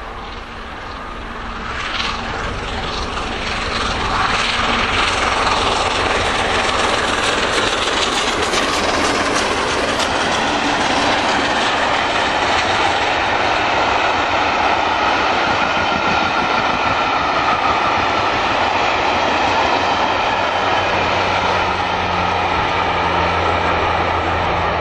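A steam locomotive hauling a train of coaches passes at speed on the main line. The noise builds over the first few seconds, then holds steady as the coaches run by with the wheels clattering on the rails.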